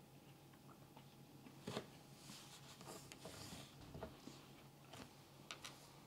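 Near silence: faint chewing and mouth noises from someone eating a chili pepper, with a few soft clicks and a short breathy hiss a little after two seconds in.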